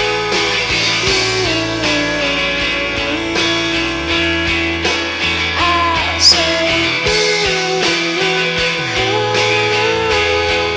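Guitar-driven rock music played from a vinyl record, the guitar notes sliding up and down over a steady bass line. A single sharp click comes about six seconds in.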